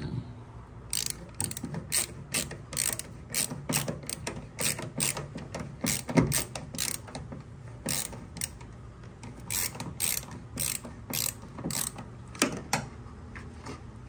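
Hand screwdriver turning a screw in a washing machine's sheet-metal front panel, making a string of sharp mechanical clicks. The clicks come irregularly, a few a second, some in quick clusters, and are loudest about halfway through.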